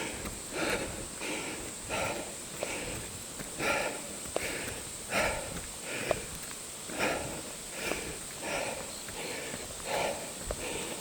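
Runner's heavy breathing from the exertion of running uphill, hard breaths coming in a steady rhythm of about three every two seconds.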